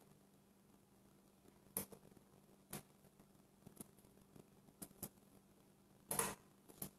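Near-quiet room with a faint steady hum and a handful of short, scattered clicks and taps, irregularly spaced. The most marked one comes a little after six seconds in.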